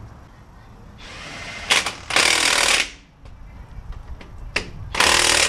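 Cordless impact wrench hammering on the front wheel hub bolts in two bursts: a longer one about two seconds in, lasting about a second, and a short one near the end.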